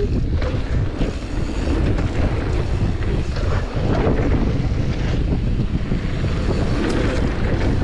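Wind buffeting the camera microphone while a downhill mountain bike rolls fast over a gravel trail, with the tyres rumbling and scattered short knocks and rattles from the bike over bumps.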